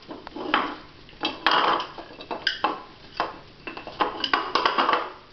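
A dog's water dish being knocked and shoved about by a Shetland sheepdog at play. It gives an irregular series of clattering knocks and scrapes, several bunched together near the end.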